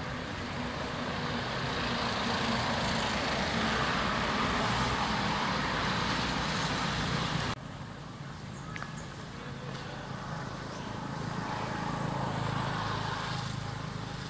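Road traffic passing in the background, a steady rushing noise that swells and fades. It breaks off suddenly a little past halfway, then a quieter low engine hum swells again near the end.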